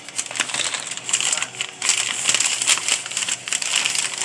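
Brown paper bag and plastic bags of powdered laundry detergent crinkling and rustling as they are handled and packed into the paper bag: a dense run of crackles.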